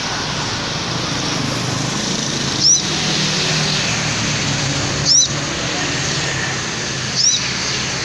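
Caged sunbird giving short, sharp high chirps, three in all, spaced about two to two and a half seconds apart, over steady road-traffic noise.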